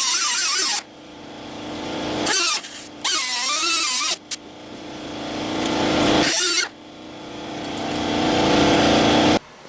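Power tool cutting into the sheet steel of a 1965 Ford F100 cab, in a series of loud bursts with a wavering squeal, between stretches that build steadily in loudness and cut off suddenly. It stops near the end.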